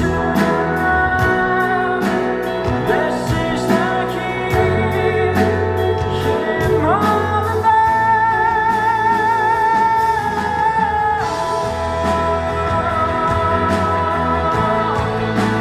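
Live rock band playing a slow song, with a lead singer holding long notes with vibrato, one about seven seconds in lasting some four seconds, over steady bass, guitar and regular drum and cymbal strokes.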